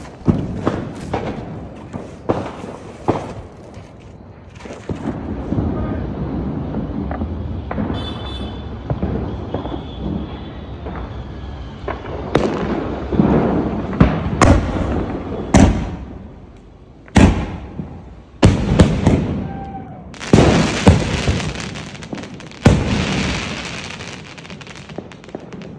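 Sonny Fireworks '21st Century' 24-shot fireworks cake firing: shells launching and bursting with sharp bangs at irregular intervals, the loudest and most frequent in the second half, with a long hissing spell after the bursts near the end.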